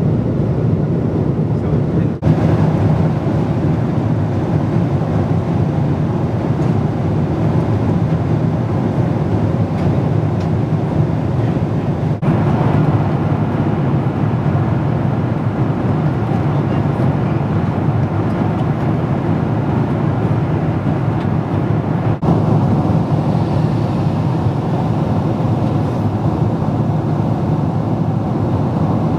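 Steady rumble and rush of a jet airliner heard inside the cabin: engines and airflow running evenly, with no rise or fall, broken only by a few split-second dropouts about ten seconds apart.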